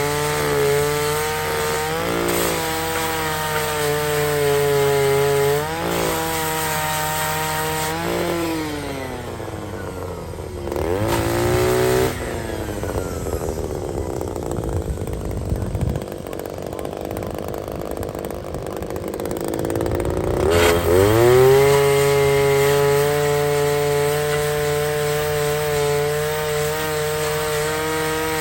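Power grinder sharpening the cutting teeth of a forestry mulcher: a high motor whine that sags each time the tool is pressed on a tooth. It winds down about ten seconds in, gives way to rough grinding noise, and spins back up to full speed about twenty-one seconds in.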